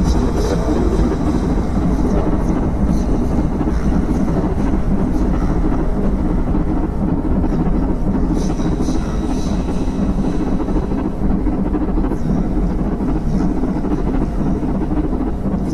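Dense, steady rumbling drone from a track on a music album, with no clear beat.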